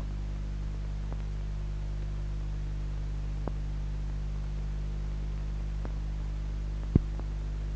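Steady low mains-type hum on an old film soundtrack, with a few faint clicks and one sharp click about seven seconds in.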